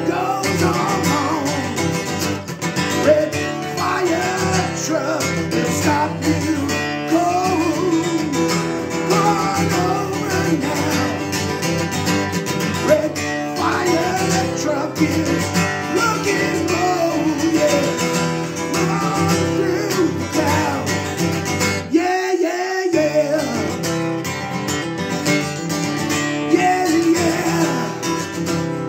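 A man singing while strumming an acoustic guitar; the low end drops out briefly about twenty-two seconds in.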